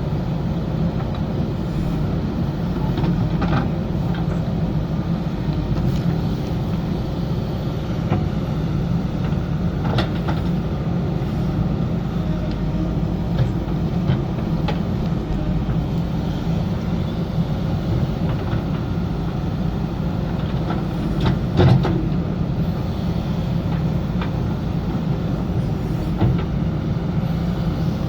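JCB backhoe loader's diesel engine running steadily as it works, with a few sharp knocks, the loudest about three-quarters of the way through.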